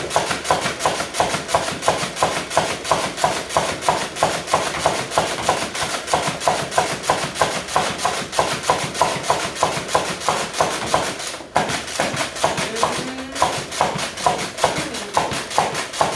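Pump-action Nerf blaster firing rapidly, about four shots a second, each with a sharp click, with a brief pause about eleven seconds in.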